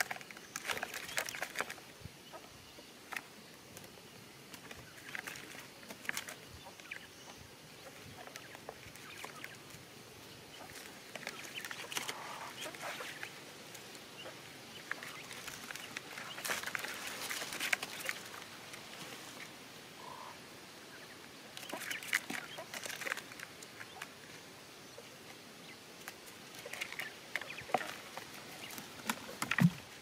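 Quail giving soft clucking calls at intervals, with short clicks between. Near the end comes a single heavy thud as a hanging coconut drops into a hole in the soil.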